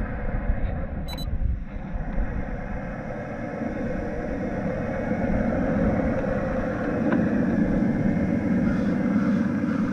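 Traxxas TRX-4 Land Rover Defender D110 RC crawler driving over grass and brush, its electric motor and gear train whirring steadily. It grows louder about halfway through as the truck comes closer.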